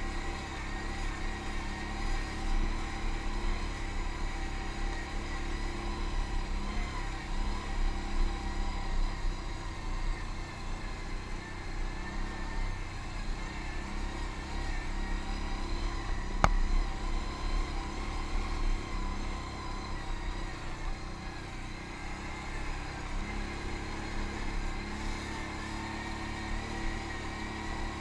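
ATV engine running steadily under way on a trail ride, with a single sharp knock about sixteen seconds in.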